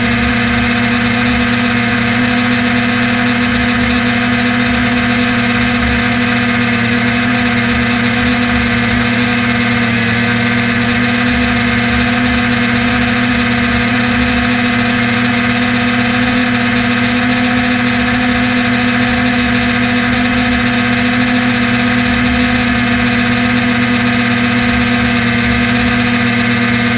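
Steady buzzing drone of a small aircraft's propeller and motor, heard from a camera on board, holding one unchanging pitch, with a low fluttering rumble underneath.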